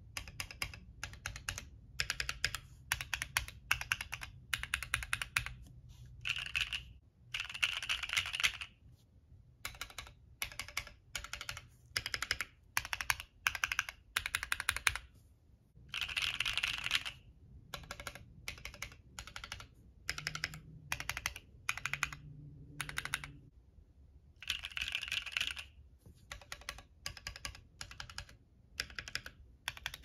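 Typing on a Bakeneko60 60% mechanical keyboard: short runs of keystrokes broken by brief pauses, with a few fast flurries. The case is heard stock and with dampening mods (shelf liner, taped case) that are meant to cut its case ping while keeping the bounce.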